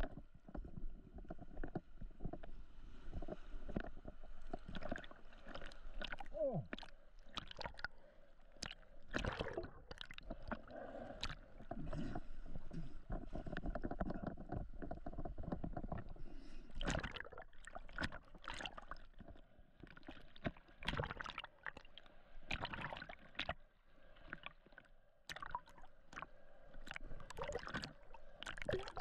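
Water sloshing and gurgling around a GoPro as the swimmer moves through the water, with many irregular splashes and knocks.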